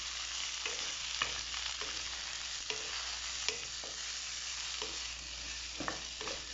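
Julienned capsicum and onion sizzling as they fry in oil in a pan, being stirred, with irregular taps and scrapes of the stirring utensil against the pan about every half second.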